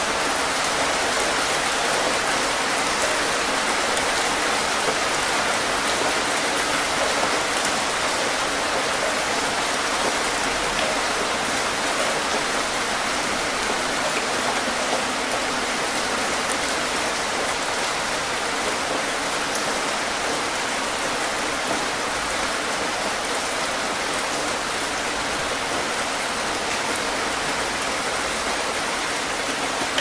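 Heavy rain falling steadily, a dense even hiss of drops with no change in strength and no thunder.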